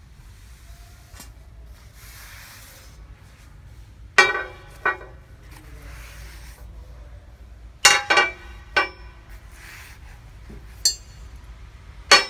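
Chrome-vanadium steel double box-end wrenches clinking, each strike ringing briefly, as they are handled and laid down on a glass tabletop. There are about seven sharp clinks, falling in three separate clusters.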